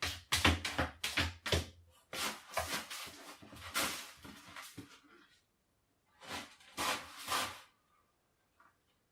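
A cat digging in sand litter in a plastic litter box, its paws scraping the litter: a quick run of scratches, about five a second, then slower, longer scrapes, a pause about halfway, and two more scrapes before it goes quiet.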